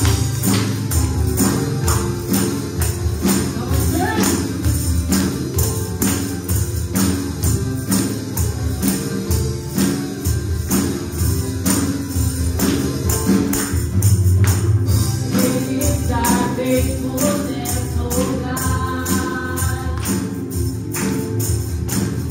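Live worship band music with a steady drum and bass beat, hand-held tambourines struck and shaken in time, and voices singing.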